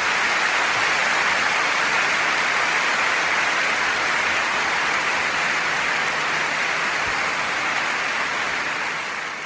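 Dense audience applause, steady and fading out near the end.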